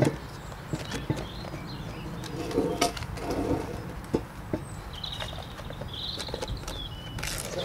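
Scattered knocks and rustling from handling a bitumen post wrap and a gas bottle, with a small bird chirping between about five and six and a half seconds in, over a steady low rumble.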